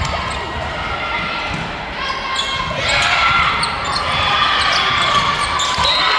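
Volleyball game in a gym: players' shouts and calls echoing in the large hall over repeated thuds of the ball and feet on the court, the voices growing louder about halfway through.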